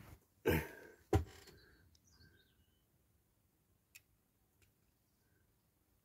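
A diecast toy car's metal base and wheels being handled and pressed into place by hand, giving a short rubbing noise and then one sharp click about a second in, followed by a few faint light ticks.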